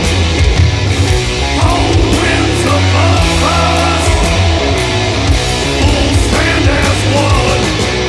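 Heavy stoner-metal band recording: distorted electric guitar and bass riffing over a full drum kit, loud and dense throughout.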